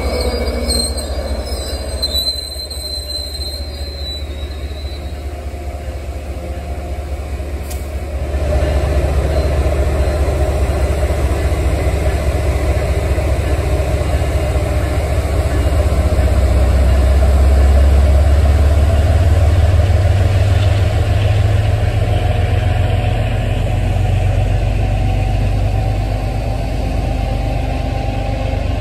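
An MBTA commuter rail train, hauled by an MPI HSP-46 diesel locomotive, passing close by: wheels squeal thinly for the first few seconds, then a deep rumble of steel wheels on rail swells from about eight seconds in as the coaches roll past, loudest around the middle.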